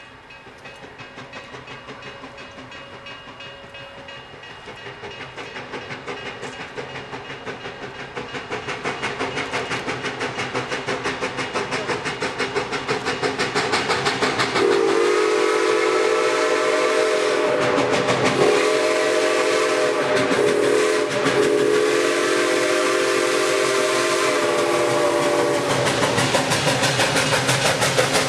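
Canadian National 7470, a 2-6-0 steam locomotive, approaching under steam, its exhaust chuffing rhythmically and growing steadily louder. About halfway through its chime whistle sounds in a series of long blasts with short breaks, for the grade crossing it is nearing.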